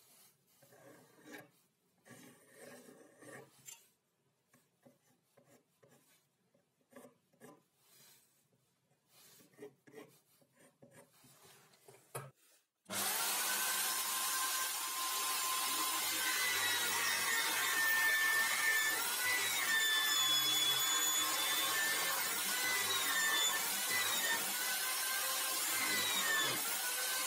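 Electric drill clamped in a homemade wooden drill-press stand, running and boring into a small softwood block, its whine shifting in pitch as the bit cuts. It starts suddenly about halfway through; before that, only faint scratching of a scribe marking lines on the wood.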